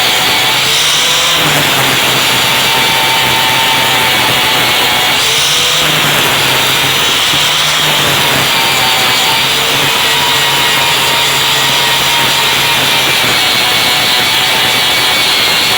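Corded Makita angle grinder with a 40-grit Diablo sanding disc grinding a stair surface under load: a loud, steady, continuous grinding noise over a constant motor hum.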